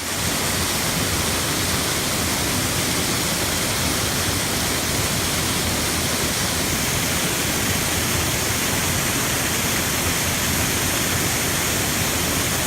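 Steady rush of a waterfall: even, unbroken water noise.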